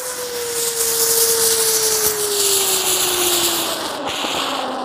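A Bambara ground spinner firework spinning fast on the ground and throwing sparks: a steady, loud rushing hiss with a whistle-like tone that slowly falls in pitch as it spins.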